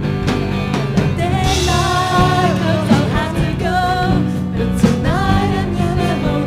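Live band playing a song: a singer's melodic vocal line, starting about a second and a half in, over a drum kit and sustained band instruments.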